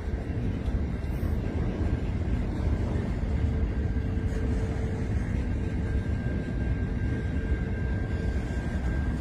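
Freight train wagons rolling past on the rails, a steady low rumble, with a faint high steady whine coming in about halfway.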